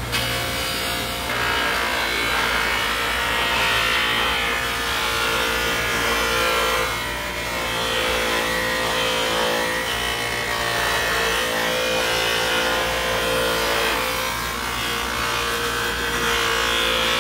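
Bench buffing machine running, its spinning sewn cloth buffing wheel rubbing against a metal wheel-balancer cone coated with buffing compound. A steady motor hum sits under a whirring, rubbing hiss that swells and eases a few times as the part is pressed and moved against the wheel.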